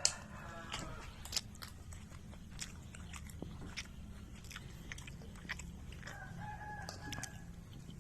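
Close-up chewing with crisp crunches from a mouthful of fried rice and krupuk crackers. Near the end a chicken calls in the background for about a second.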